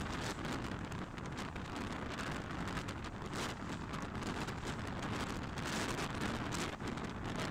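Class S11 diesel multiple unit train running at speed: a steady rumble and rush of air, dense with short clicks and rattles from the wheels and carriage.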